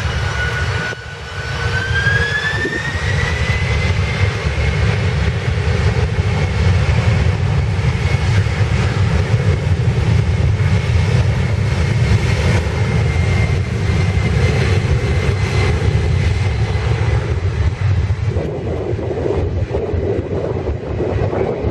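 Jet airliner engines spooling up, their whine rising in pitch over the first few seconds, then holding steady at high power over a heavy, continuous rumble.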